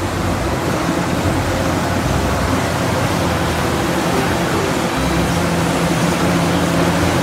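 Caterpillar 6015B hydraulic mining excavator's diesel engine running steadily under load as it digs and swings, with its low hum growing stronger about five seconds in.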